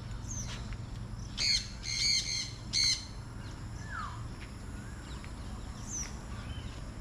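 Caged parrots and parakeets calling: a quick run of four short, harsh screeches a little after a second in, with fainter chirps and one falling whistle later.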